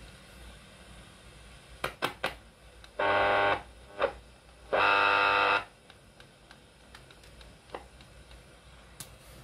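Clicks of switches or controls on a Sanyo MW220K radio cassette player, with two short steady buzzes that start and stop abruptly, the second a little longer, and a few more single clicks.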